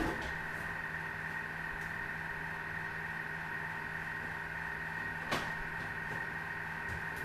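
Thermomix food processor running steadily as its butterfly whisk whips egg whites into meringue, a constant motor hum with a higher whine over it. A single sharp knock about five seconds in.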